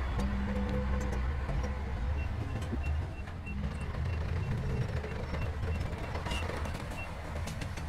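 Heavy diesel earthmoving machine running with a low, steady rumble, while a reversing alarm beeps about three times a second from about two seconds in until near the end, the sign of a machine backing up.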